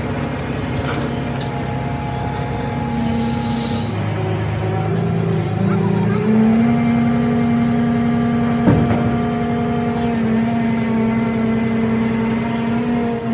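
An engine running, its speed stepping up between about four and six seconds in and then holding steady at the higher pitch, with a single sharp knock near nine seconds.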